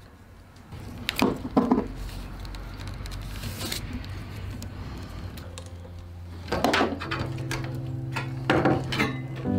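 Knocks and clatter of a pair of skis being handled and lifted out against an old car, in several separate bursts. Under them, a low steady drone comes in about a second in and gains higher held tones near the end.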